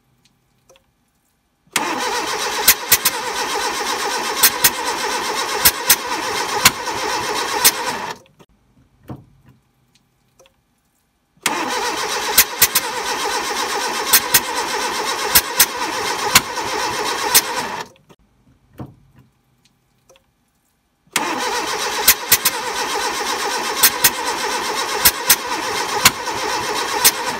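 Carburetted Fiat petrol engine cranking on the starter in three tries of about six seconds each, with sharp pops banging back through the carburettor throughout each try.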